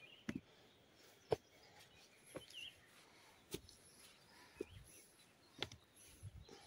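Footsteps on a stony mountain trail, a short knock about once a second, with a few faint bird chirps.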